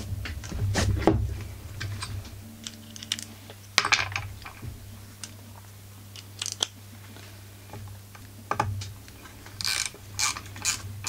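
Scattered knocks and clatter of tools being handled on a chainsaw's engine housing. Near the end come short runs of rapid ratchet clicks as the ignition coil bolts are tightened to hold the set flywheel air gap.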